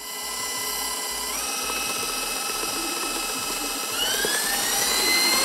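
KitchenAid stand mixer's motor starting up and running with a steady whine as it beats cupcake batter. The whine steps up in pitch about a second in as the speed is raised, then climbs higher and louder near the end.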